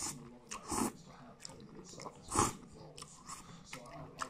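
A person slurping spaghetti and chewing, with a few short wet slurps, the loudest about two and a half seconds in.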